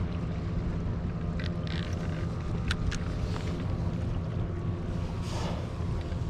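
A boat engine drones steadily over wind and sea noise, with a few short sharp clicks near the middle.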